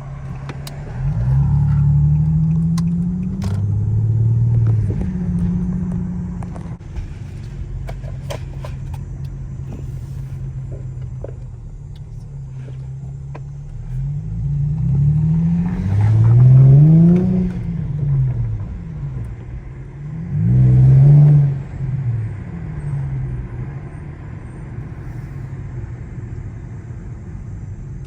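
Infiniti G35's 3.5-litre V6 with the exhaust resonators deleted, pulling up through the revs about a second in and then droning low and steady. It revs up hard and back down twice, once about halfway through and again a few seconds later.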